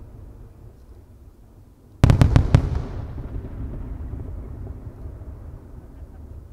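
Aerial firework shells bursting: a quick cluster of about five sharp bangs about two seconds in, followed by a long rumbling echo that slowly fades.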